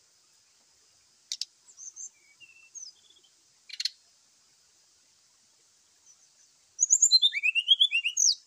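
Brown-chested jungle flycatcher (sikatan rimba dada coklat) giving its fighting song: a few short whistled notes and two sharp clicks, then a rapid, loud burst of twittering notes in the last couple of seconds. A faint steady high hiss sits underneath.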